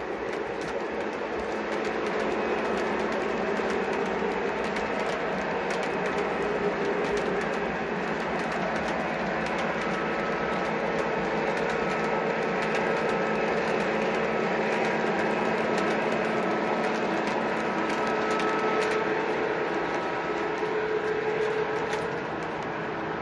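Lionel O-gauge model freight cars rolling past on three-rail track: a steady rolling noise of metal wheels on metal rail, with frequent clicks as the wheels cross rail joints.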